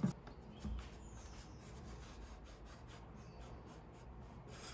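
Hands handling bicycle parts during assembly: a knock at the start and another soon after, then faint rubbing and small scattered ticks of metal parts being fitted.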